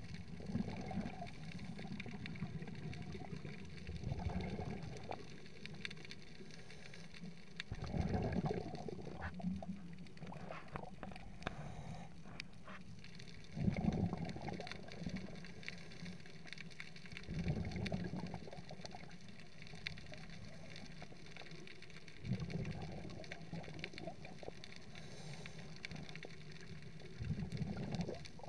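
Underwater recording: low gurgling bursts of a diver's exhaled bubbles, about every four to five seconds, over a steady faint hiss.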